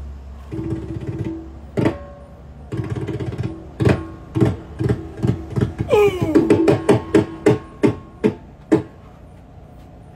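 Koodiyattam drum accompaniment: mizhavu drums struck in ringing hand strokes that come faster and closer together in the middle, with a tone sliding down in pitch about six seconds in.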